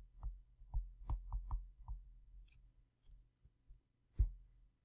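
Pen stylus tapping and clicking on a tablet screen as words are handwritten: a quick run of light clicks in the first two seconds, a few faint ticks, then a single louder knock about four seconds in.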